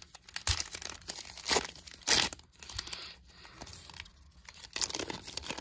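A foil trading-card pack wrapper being crinkled and torn open by hand, in a series of short rips and crinkles.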